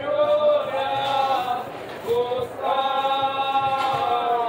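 Voices singing a slow chant, holding long notes that glide gently from one pitch to the next.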